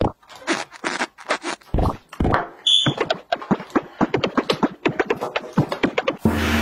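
Plastic toy trains clattering and knocking against each other and the tabletop as they are handled, with a short high electronic beep near the middle. Near the end a battery-powered toy locomotive's sound starts up, a steady hum with a hiss.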